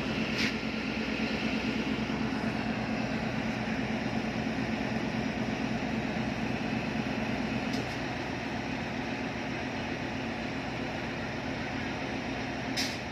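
Diesel engine of a Pakistan Railways ZCU-20 (GE U20C) diesel-electric locomotive idling with a steady hum, a little quieter from about eight seconds in. A short sharp click near the end.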